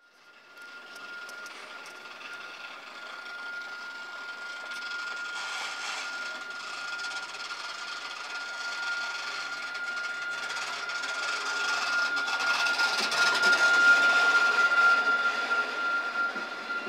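A Nottingham Express Transit tram approaching and pulling into a stop, its running noise growing louder as it comes alongside and slows, loudest about three-quarters of the way through. A steady high whine is held throughout.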